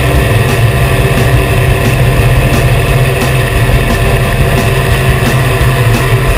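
Twin piston engines of a Beechcraft Baron running with a steady drone mixed with rushing air, picked up from under the fuselage as the plane rolls along the runway.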